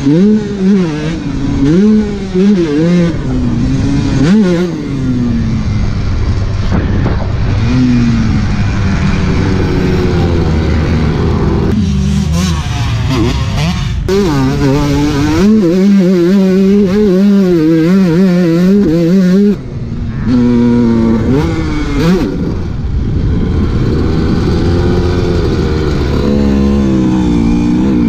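Dirt bike engine revving hard and easing off again and again, its pitch climbing and falling as the rider accelerates, shifts and brakes around the track.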